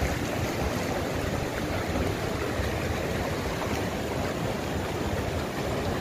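Fast-flowing, silty mountain river rushing steadily over rocks.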